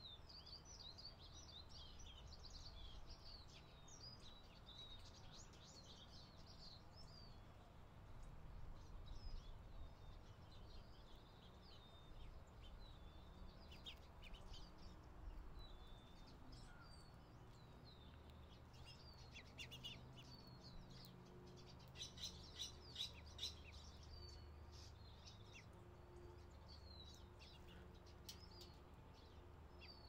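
Small songbirds chirping faintly, in clusters of quick short chirps, busiest near the start and about three quarters of the way through, over a low steady background rumble.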